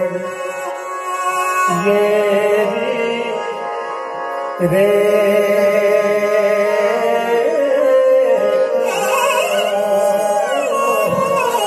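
Indian classical music accompanying a Kathak dance: a slow, ornamented melody over a steady drone, with a new phrase starting about two seconds in and another a little before the middle. There is no ankle-bell footwork.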